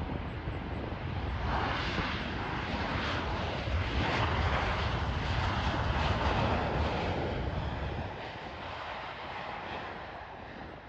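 Jet airliner engines passing by, the rush of engine noise building to a peak in the middle and fading away over the last few seconds.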